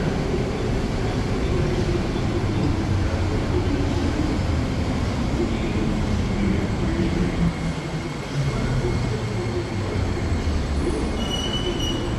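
C751B metro train pulling into the platform and slowing to a stop, its running hum falling in pitch as it brakes, with a brief high squeal near the end as it halts.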